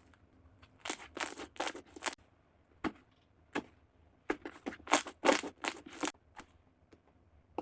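Slime being squeezed and pressed by hand, making short sticky popping and crunching noises: a group of four about a second in, two single pops, then a quicker run of several around five seconds in.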